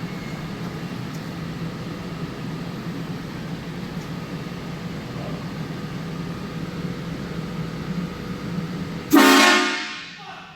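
Mitsubishi Minicab mini truck's engine running steadily, then a loud blast from the train horn fitted to the truck about nine seconds in, cutting in suddenly and fading out over about a second.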